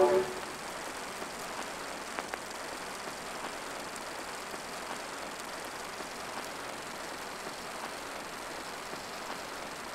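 Steady old-film hiss with scattered faint crackles and a few soft clicks, the surface noise of a worn film soundtrack.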